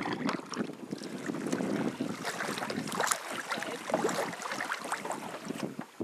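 Canoe paddles dipping and pulling through river water, with many small splashes and drips from the blades, and wind on the microphone.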